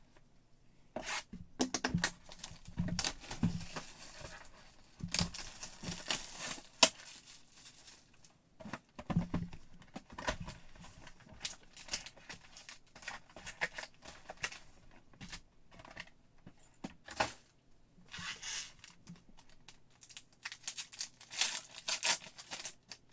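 A 2022 Panini Limited football card box being handled and opened, then a foil card pack being torn open. There is irregular rustling, tearing and crinkling of cardboard and wrapper, in bursts, with sharper crackling runs near the middle and toward the end.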